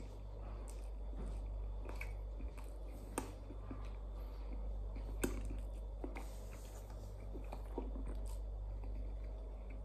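A person chewing food with the mouth closed, with scattered small clicks and a steady low hum underneath.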